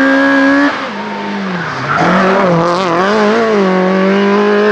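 Citroen Nemeth AX Sport hillclimb car, an up-to-1600 cc racing engine, revving hard as it comes up to the camera. About a second in it lifts off and the engine note drops. Near the middle it accelerates again, the revs wavering before they hold steady and high as the car drives away.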